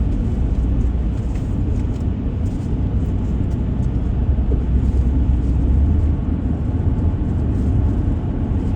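Car driving along the road: a steady low rumble of engine and tyres that does not change.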